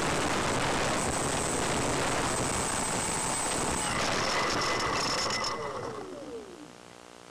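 Slow Stick RC plane's electric motor and propeller running under a steady rushing noise, then winding down near the end with a falling whine as the plane comes to rest on the grass.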